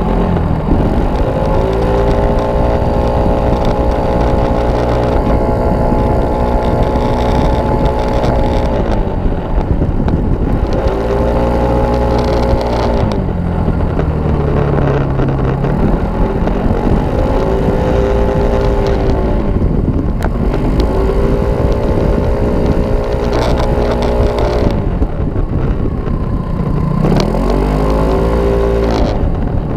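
Kymco Racing S scooter's single-cylinder engine running hard at high revs, held steady for long stretches and falling away and climbing back again several times, over steady wind and road rush.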